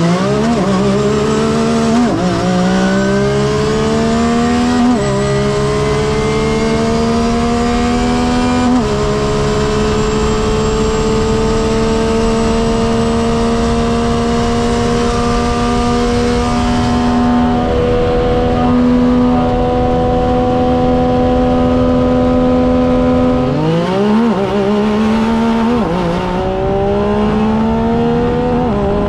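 Turbocharged side-by-side UTV engine at full throttle on a drag run, climbing in pitch and dropping back at each upshift, three times in the first nine seconds, then holding a steady high pitch. Near the end the pitch falls, then climbs and steps through the gears again.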